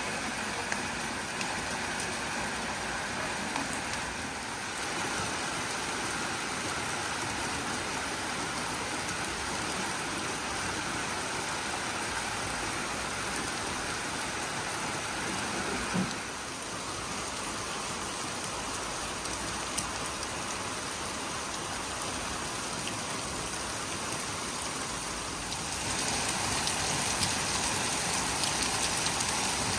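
Rain falling steadily, growing a little heavier near the end.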